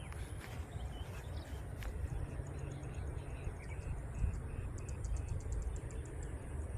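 Low rumble of wind on the microphone in an open field, with rapid trains of high, thin chirps from small field creatures starting about two seconds in.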